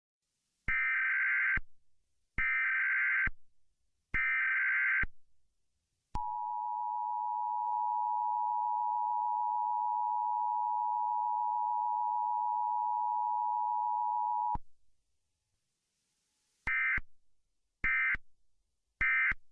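Emergency Alert System tones. Three one-second screeching data bursts of the SAME header are followed by the steady two-note attention signal, held for about eight seconds, then three short beeps near the end.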